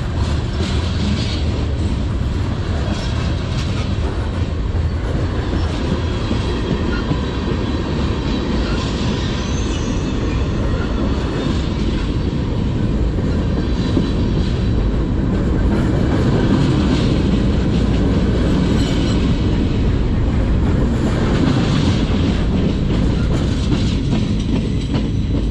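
Freight cars of a manifest train, tank cars and open hoppers, rolling past close by: a steady, loud rumble and clatter of steel wheels on rail.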